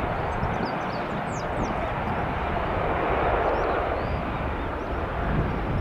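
Airbus A380 landing: steady jet noise from its four engines and the rush of air as the airliner flares and touches down.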